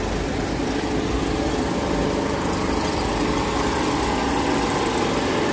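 Small portable generator engine running steadily with an even drone.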